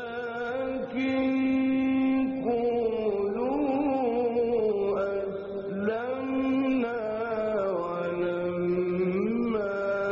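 Male Quran reciter's voice in slow, melodic mujawwad-style recitation. He holds long drawn-out notes with ornamented rising and falling turns in pitch.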